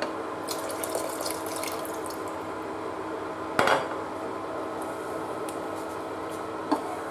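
Water poured from a bowl into a pot of thick simmering dal makhani, splashing and bubbling into the lentils, with one sharp knock against the pot about three and a half seconds in and a smaller click near the end as the spatula stirs.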